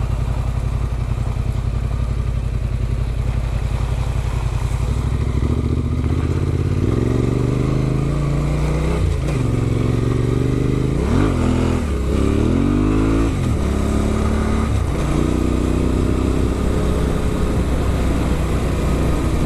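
Adventure motorcycle with an Arrow exhaust running under way: a steady engine note for the first few seconds, then the pitch rising and falling with throttle changes and a few quick drops between about 9 and 13 seconds in.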